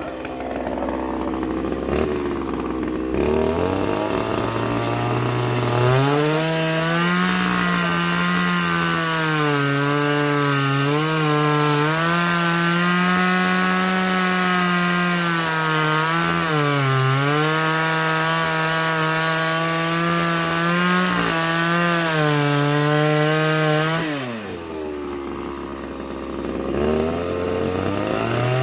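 Two-stroke chainsaw revving up and cutting into pine wood, its engine pitch wavering and dipping as it bogs under load. About 24 seconds in it falls back to idle, then revs up again near the end.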